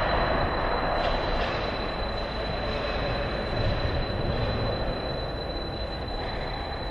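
Steady rumbling hiss of an indoor ice hockey rink during play, with a thin high whine throughout.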